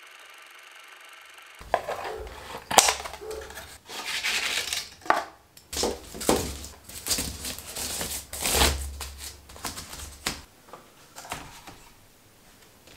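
Woven basket being handled close up: a run of sharp creaks, rustles and knocks from the weave, starting about a second and a half in and easing off near ten seconds into quieter handling.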